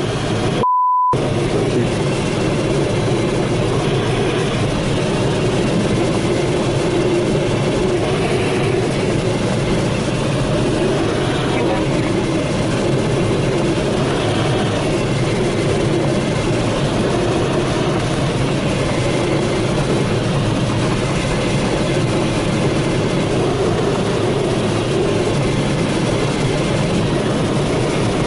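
Steady rush of airflow over the canopy of an Astir glider in flight, heard inside the cockpit during the landing approach with the landing gear extended. A short beep about a second in.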